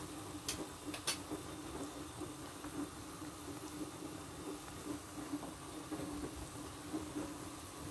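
Pot of soup at a rolling boil: steady bubbling, with two small clicks about half a second and a second in.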